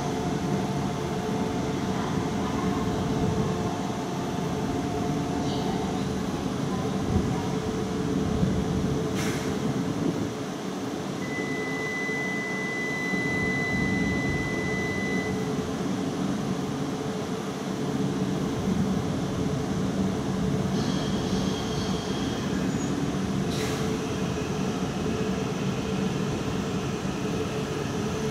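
Shinkansen train standing at a station platform, its onboard equipment and air conditioning giving a steady hum with several held tones. A high steady tone sounds for about four seconds midway, and there are two brief clicks.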